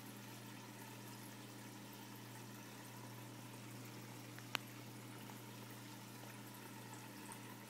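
Turtle-tank filter running: a steady low hum with water trickling into the tank, and a single sharp click about four and a half seconds in.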